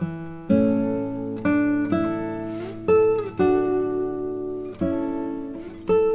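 Background music of slow plucked guitar notes and chords, a new one about every second, with a few notes sliding in pitch.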